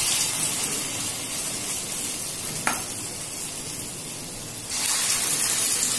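Pakora batter frying in hot refined oil in a kadai: a steady sizzle that eases off in the middle and swells louder again near the end, with one brief click about halfway through.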